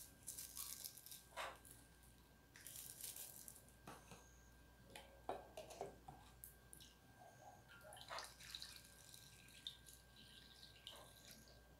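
Faint handling of thin plastic: an ice-pop bag crinkling and light clicks and knocks of a plastic measuring cup and funnel, with liquid poured through the funnel into the bag near the end.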